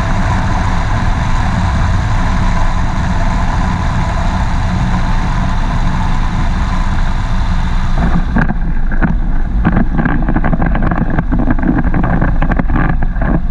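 Flexwing microlight trike's Rotax 912 engine running with a steady rush of wind on the final approach to land. About eight seconds in the rush falls away suddenly and is replaced by repeated knocks and rattles as the trike rolls out over bumpy grass after touchdown.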